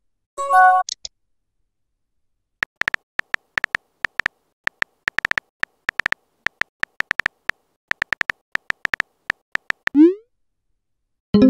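Smartphone texting sound effects: a short chime just after the start, then a long run of quick keyboard taps as a message is typed. About ten seconds in comes a rising whoosh as the message is sent, and another chime near the end.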